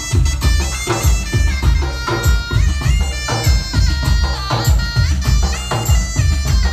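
Instrumental interlude of Mappilappattu stage music: a lead melody of held notes stepping up and down over a steady, heavy drum beat.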